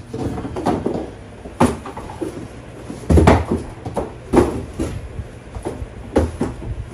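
Cardboard shipping boxes being handled and packed with fruit: irregular knocks, thumps and scrapes, the loudest a little after three seconds in.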